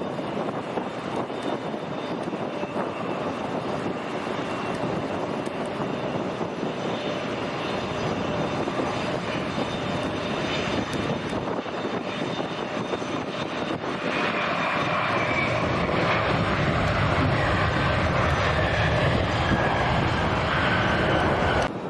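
Airliner engines running as the plane passes, a steady rushing rumble that swells about two-thirds of the way through, with a whine that slowly falls in pitch as it goes by; the sound cuts off suddenly near the end.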